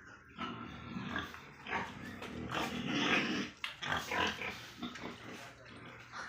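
Pigs on a farm grunting and calling in a run of irregular, overlapping bursts.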